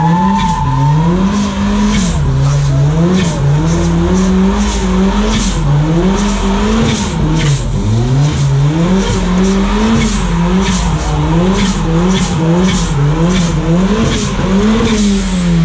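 Car engine revving up and down over and over while its tyres spin and squeal in a burnout, with the revs dropping away near the end.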